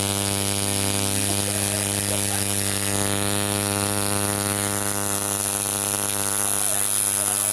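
Electric tattoo machine buzzing steadily as its needle works ink into the skin of a finger.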